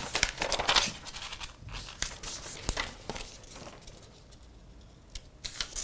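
Paper sticky notes rustling as they are handled and pressed onto a wall, with scattered short rustles and soft taps that thin out after about three seconds.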